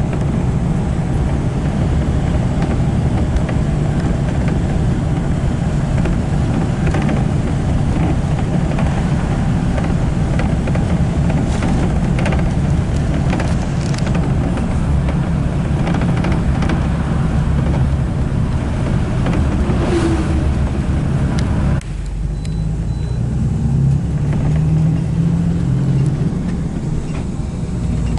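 Steady engine and road rumble of a car on the move, heard from inside, with a few faint clicks. About twenty-two seconds in the sound changes abruptly and becomes duller.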